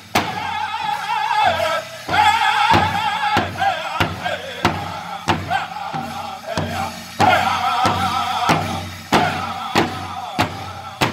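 Powwow drum group: several men singing in high, wavering voices over a large hide powwow drum struck together in a steady beat, a little under two strokes a second. It is a song for the men's chicken dance.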